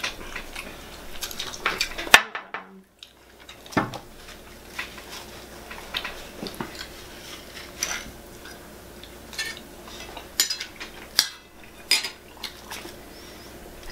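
Metal fork and spoon clinking and scraping against a plate, in short, irregular taps as food is cut and scooped.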